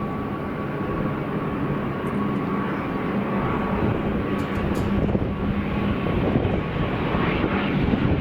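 Loganair ATR 72-600 turboprop arriving, its Pratt & Whitney PW127 engines and propellers running with a steady droning hum and a held higher whine over a rushing noise. The sound grows slowly louder.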